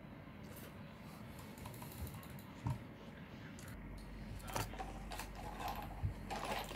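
Scattered light clicks, taps and paper rustling from handling things at a computer desk, with two sharper knocks, about two and a half and six seconds in.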